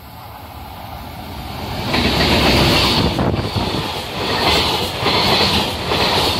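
Electric-hauled container freight train passing at speed: its rumble grows as it approaches, turns loud about two seconds in as the locomotive goes by, then the container wagons clatter past with a regular wheel beat about every three-quarters of a second.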